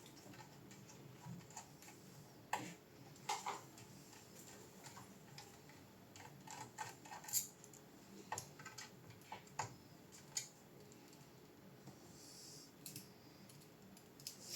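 Scattered small clicks and taps, about a dozen at uneven intervals, over a faint steady hum.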